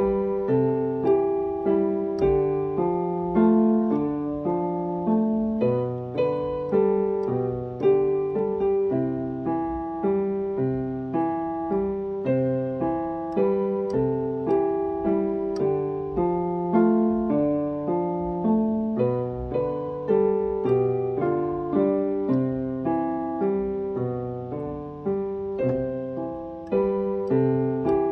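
A keyboard playing a gentle melody over chords in a piano voice, with notes struck at an even, unhurried pace, each ringing and fading into the next.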